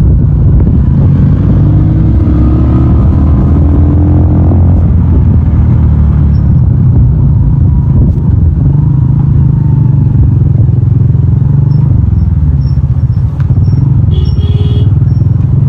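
Loud, steady low rumble of a motor vehicle, with a brief higher-pitched sound near the end.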